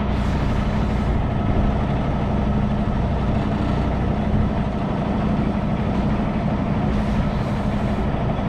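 Semi truck's diesel engine running steadily at low revs, heard from inside the cab while the rig is maneuvered slowly in reverse.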